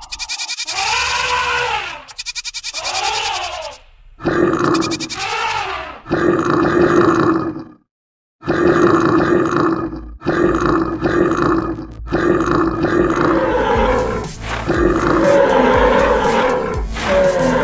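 A run of animal roars and grunts, cut one after another in clips of about two seconds, with several of the same call repeated and a brief silence about eight seconds in.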